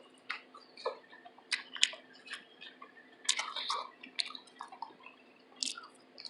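A person chewing food close to the microphone: soft, wet mouth smacks and clicks at irregular moments, a few louder ones about one and a half seconds in and again around three and a half seconds in.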